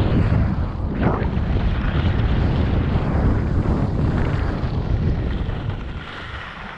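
Heavy wind noise buffeting the microphone while moving fast downhill, a rough rumbling rush that eases off near the end.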